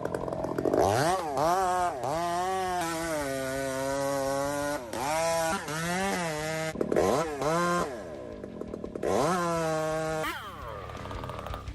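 Two-stroke chainsaw engine revving up and down over and over, holding a steady high pitch between the revs, then winding down near the end.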